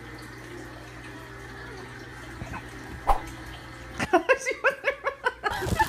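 Low steady room hum, then about four seconds in a baby laughing in a quick string of high 'ha-ha-ha' giggles lasting about a second and a half.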